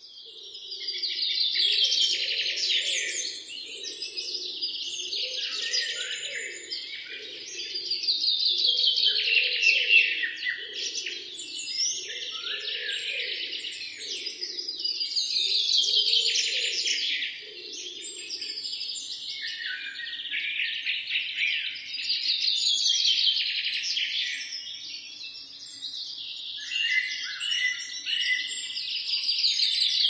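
Many small birds chirping and twittering together, the chatter swelling and fading about every seven seconds.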